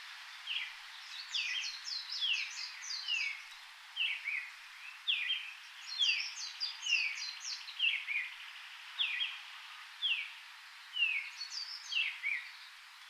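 Forest birds calling: short, downward-sliding chirps repeat about once or twice a second, with bursts of higher, quicker twittering, over a steady background hiss.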